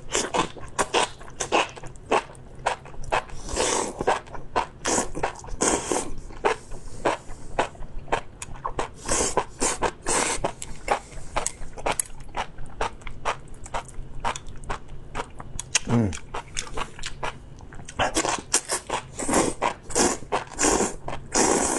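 Close-miked chewing of spicy enoki mushrooms: a dense, irregular run of wet, crunchy clicks and squeaks from the mouth. A short falling hum comes about sixteen seconds in.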